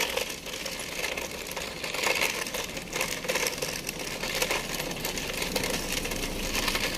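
Dense crackling rustle and wind noise on a handheld phone microphone carried while walking, with a car driving past close by near the end.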